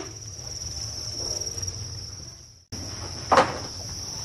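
A chorus of many farmed crickets chirping in a steady, high-pitched trill. It breaks off briefly a little past halfway, and a single knock sounds just after it resumes.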